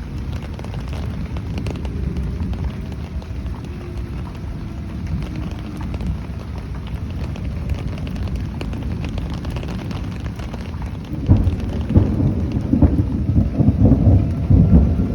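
Storm noise: a low, rumbling rush of wind and rain on the microphone that turns louder and gustier about eleven seconds in. A faint tornado warning siren wails in the distance underneath.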